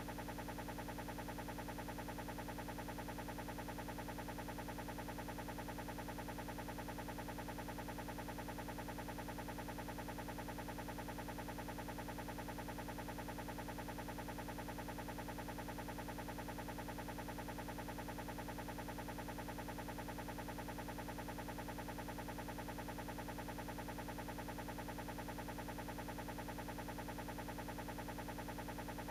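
A steady, unchanging buzzing hum with a fast, even flutter, no rise or fall and no breaks.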